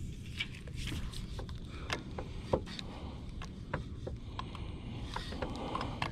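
Steady low rumble on a fishing boat, with scattered sharp clicks and taps from handling a baitcasting rod and reel, the loudest about two and a half seconds in.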